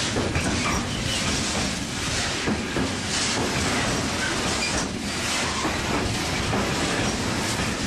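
Freight train of container flat wagons rolling past close by: a steady rumble of steel wheels on the rails, broken by irregular clacks as the wheelsets run over rail joints.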